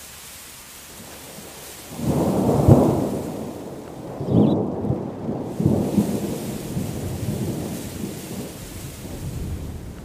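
Steady rain hiss, with a roll of thunder rumbling in about two seconds in; the rumble swells a few times and slowly dies away.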